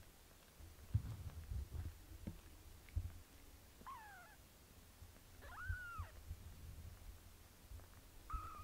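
A very young British Shorthair kitten mewing: three thin high mews, the first falling in pitch, the second rising then falling, the last near the end. Soft low thumps from movement come in between, the strongest about a second in and again at three seconds.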